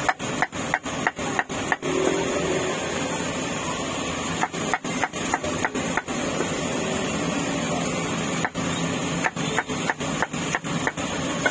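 A cleaver chopping meat in three quick runs of strokes, about three a second, over the steady hiss of heavy rain.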